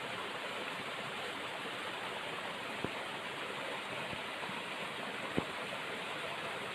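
Steady rush of running water, with two faint knocks about three and five and a half seconds in.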